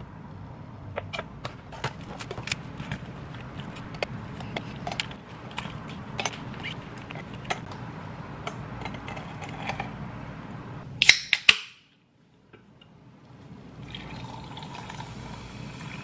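Ice cubes clinking into a glass tumbler, a run of small sharp clicks and taps, with a louder clatter about eleven seconds in. From about fourteen seconds a fizzy drink, likely sparkling water, is poured into the glass, a steady fizzing hiss.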